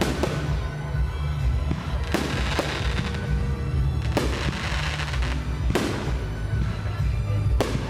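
Aerial firework shells bursting in a series of sharp bangs, one every second or two, with music and a steady bass playing underneath.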